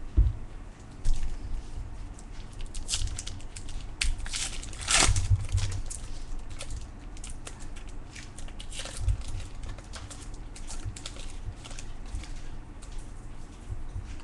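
Trading cards and their packaging being handled on a table: scattered rustles, clicks and crinkles, the loudest about five seconds in, with low bumps underneath.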